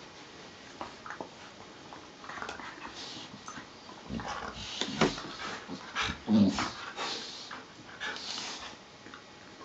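Two collies play-fighting, mouthing at each other's faces, with irregular bursts of dog vocalising that are loudest a little after six seconds in. A few faint clicks come in the first two seconds.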